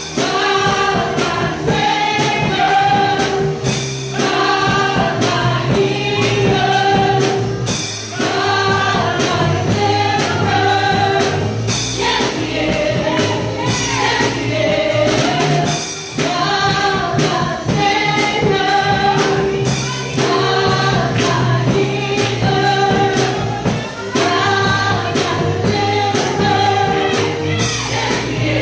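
Gospel music at a Pentecostal church service: a choir of voices singing over band accompaniment with a steady, even beat.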